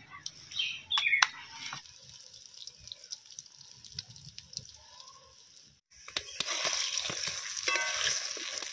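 Egg pakoras frying in hot oil in a wok: a steady sizzle comes in suddenly about six seconds in, with a metal spatula scraping and clicking against the pan. Before that, a few faint wet clicks and squelches from the batter being mixed by hand.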